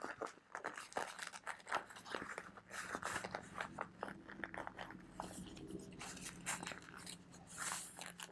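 Fabric carry bag being handled: a run of small irregular rustles, scrapes and clicks as hands rummage inside it and its Velcro pocket. A faint steady low hum comes in about halfway through.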